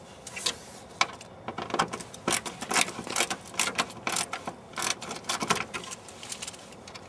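License plate screws being backed out by hand with a tool: a run of short, irregular metallic clicks and scrapes.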